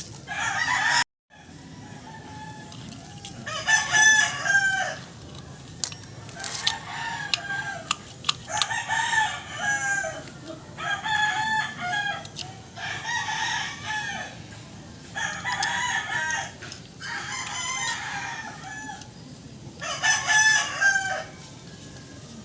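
Roosters crowing over and over, about eight crows a couple of seconds apart, each lasting about a second. The sound cuts out completely for a moment about a second in, and a few sharp clicks sound between the crows.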